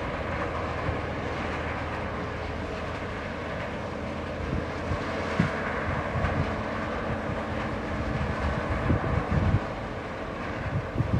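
Steady drone of a survey ship's engines and thrusters as it turns in place in the harbour. Wind buffets the microphone in low thumps, mostly around the middle and near the end.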